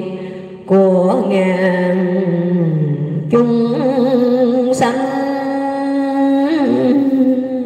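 A woman's voice singing a Vietnamese Buddhist verse in long, slowly drawn-out notes into a microphone. The first phrase starts a little under a second in; after a short breath about three seconds in, a higher note is held with a slight wavering.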